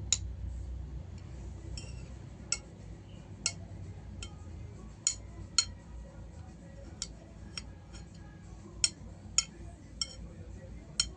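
Metal cutlery clinking against a plate about a dozen times at an uneven pace, each clink ringing briefly, as spicy fried rice is scooped up to eat.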